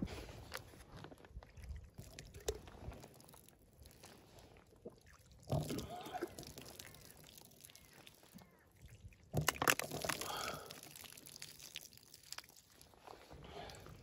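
Close handling noises: intermittent rustling, scuffs and light clicks as a foam tray of raw chicken wings and a jacket are moved about, with louder bursts about five and a half and nine and a half seconds in.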